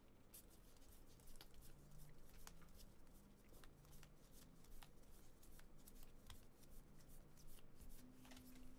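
Stack of glossy chrome refractor baseball cards being flipped through by hand, one card at a time: faint, irregular light clicks and slides of card against card.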